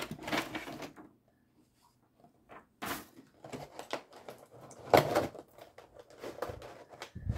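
A boxed perfume and body-lotion set being opened and handled: packaging rustles with scattered clicks and knocks, the sharpest about five seconds in.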